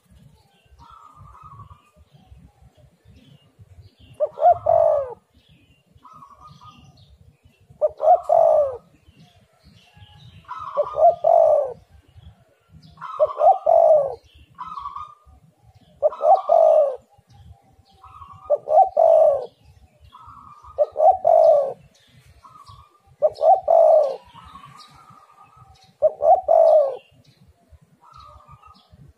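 Spotted dove cooing over and over: nine loud coo phrases, one about every two and a half seconds, with fainter, higher-pitched coo notes in between.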